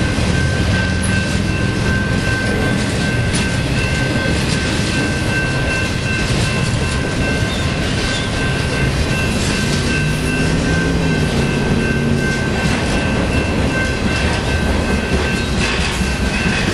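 Freight train's trailer-laden flatcars rolling past, wheels clattering over the rails in an irregular stream of clicks, with a steady high-pitched whine running through it.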